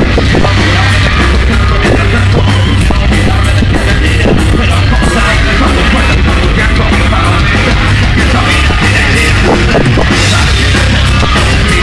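Live rock band playing loud, with electric guitars, bass and drums and a singer's voice over them.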